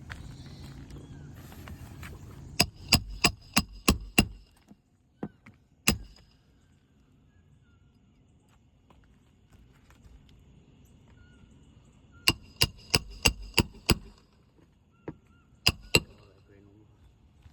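Hammer driving roofing nails into asphalt shingles by hand: two runs of about six quick ringing blows, each run about three blows a second, with single and double blows between.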